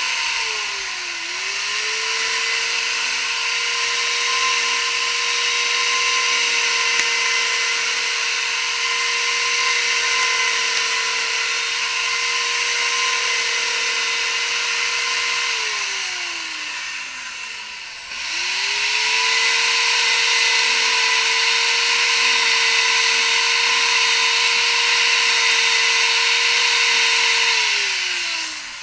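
A high-speed electric power tool running at a steady high-pitched whine. It dips briefly about a second in, then winds down with a falling pitch and stops about two-thirds through. It is switched on again with a quick rising whine and winds down once more near the end.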